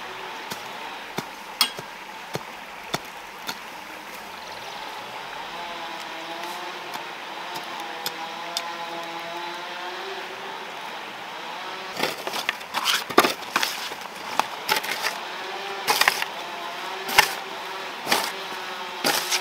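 Hoe blade striking garden soil again and again, sharp irregular chops through the second half, with a few lighter taps of a hand tool in the ground earlier. Under it, a steady background hiss and a faint engine hum that rises and falls in the middle.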